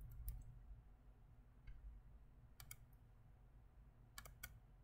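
Near silence with a few faint, scattered clicks from a computer mouse as the web page is scrolled.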